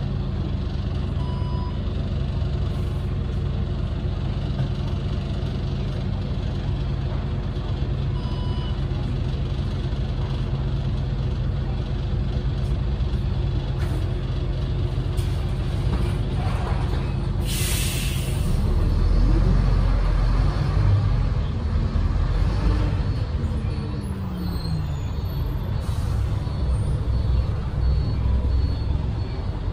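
Renault PR100.3 bus's turbocharged six-cylinder diesel idling steadily at a stop. About 17 s in there is a short, sharp hiss of compressed air. The engine then revs up as the bus pulls away, its pitch rising and dropping back as the ZF automatic gearbox shifts up.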